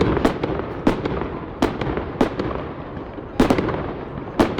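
Fireworks display: aerial shells bursting in a run of sharp bangs, about seven at uneven intervals, each trailing off in a rumbling echo.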